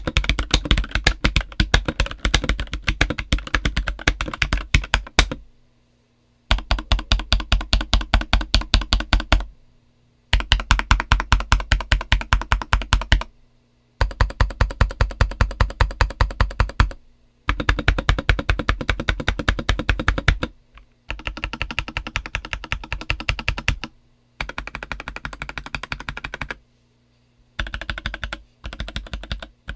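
MK870 mechanical keyboard with a polycarbonate plate, JWK Black linear switches and DCX keycaps being typed on fast. The keystrokes come in runs of a few seconds each, broken by short pauses, and the last few runs are quieter and shorter.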